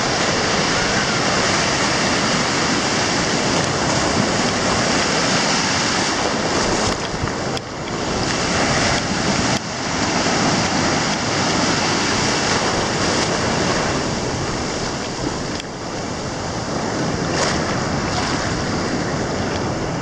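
Ocean surf: waves breaking and washing through the shallows in a loud, steady rush.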